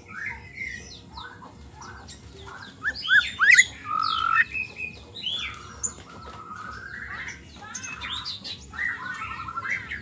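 White-rumped shama singing a long, varied song of clear whistles, quick rising notes and trills, loudest about three to four and a half seconds in.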